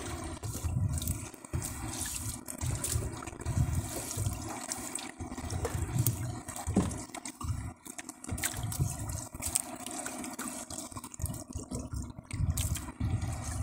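Water sloshing, splashing and dripping around a small wooden boat as a wet net is hauled in over the side, with low swells of sound about once a second and scattered small ticks.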